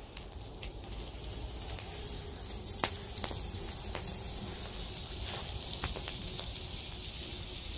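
Sausage slices sizzling in a metal bush box lid used as a fry pan over an open wood fire, with occasional sharp pops. The sizzle grows a little louder.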